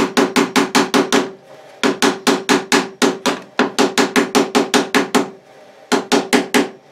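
Rapid, even tapping, about six strikes a second, in runs of one to two seconds with short breaks; each strike has a short hollow ring. It is a tight-fitting CNC-cut frame part being knocked into place on the router bed, a fit that has to be hammered in.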